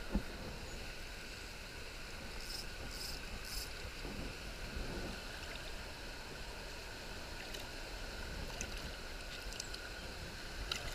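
Shallow river water rushing steadily over a riffle around the wader's legs, with a soft knock just after the start and a few faint high swishes a few seconds in.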